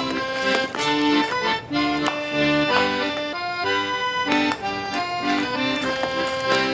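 Instrumental background music: a melody of quick, held notes.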